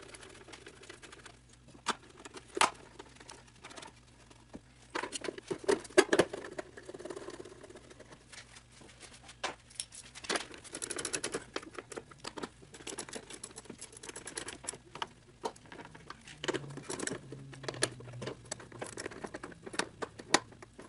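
Sped-up clicking and metallic clinking of a ratchet wrench and hand tools while a wiper transmission and motor assembly is bolted back into a car's cowl. There are scattered sharp knocks throughout and runs of rapid ratchet clicks about ten seconds in and again a few seconds later.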